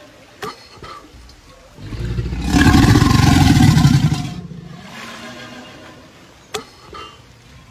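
A large crocodilian bellowing: one deep, rumbling bellow that starts about two seconds in, lasts about two and a half seconds and then fades.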